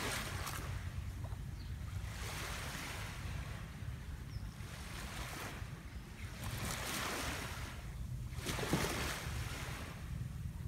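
Small waves lapping and washing up on a sandy beach, swelling and falling away every couple of seconds, with a steady low rumble of wind on the microphone.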